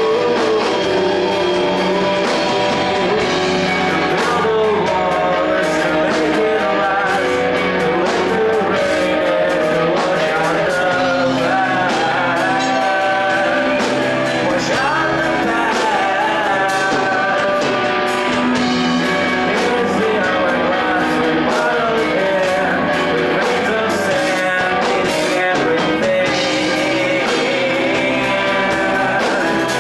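A rock band playing a song live, with a singer over guitar, steady and loud throughout.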